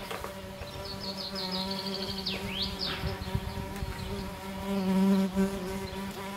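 A steady low buzzing hum that swells louder about five seconds in. A quick run of high chirps and two swooping high whistles sound over it about one to three seconds in.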